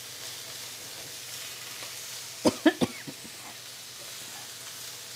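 Shrimp sizzling steadily as they sauté in hot coconut oil in a skillet. About two and a half seconds in come three quick coughs, brought on by the fumes of the chili powder and cumin in the pan.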